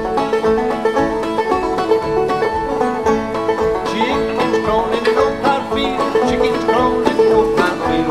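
Instrumental string-band background music led by banjo, playing steadily without singing.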